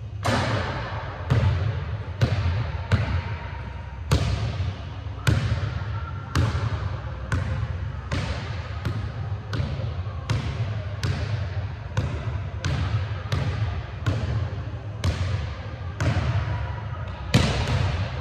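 Basketball bouncing on a hardwood gym floor about once a second, each bounce sharp and echoing in the large hall.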